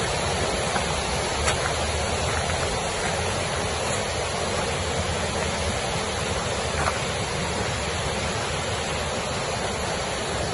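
Steady rushing of a river running high after heavy rain, an even wash of water noise, with a couple of faint ticks.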